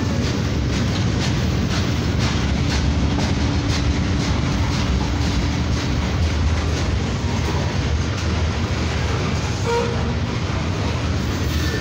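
Freight train of flatcars and covered hopper cars rolling past: a steady rumble with the steel wheels clacking over rail joints at a regular beat, and a low steady hum that fades out about halfway through.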